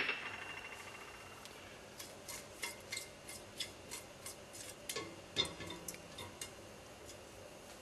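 A stainless steel stockpot knocked once and ringing briefly. Then a plastic slotted spatula scrapes and taps across the pot's bottom, stirring cumin seeds in a little oil: a dozen or so light clicks and scrapes over about four seconds, before the seeds begin to sizzle.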